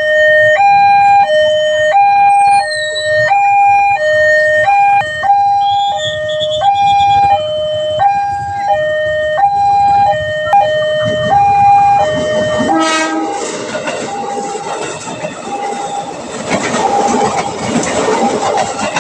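Railway level-crossing electronic warning alarm sounding a steady high-low two-tone signal, each tone held about half a second, warning of an approaching train. About 13 seconds in, a train gives a short horn blast and passes with loud rumbling wheel noise, the alarm still faintly going underneath.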